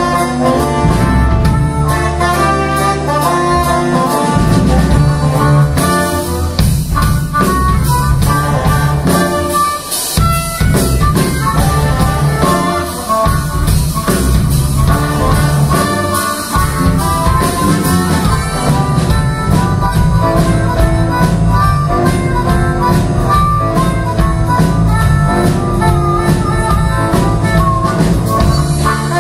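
Live band playing jazzy folk music: trumpet and saxophones playing together with harmonica over a steady drum beat.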